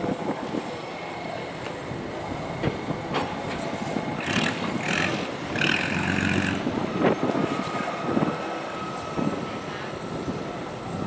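Steady mechanical running noise full of rattling clicks and clatter, with a louder stretch of higher sound partway through.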